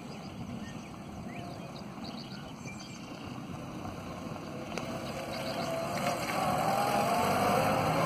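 A WWII Ford GPW Jeep's four-cylinder flathead engine running as the Jeep drives toward the listener, growing steadily louder through the second half.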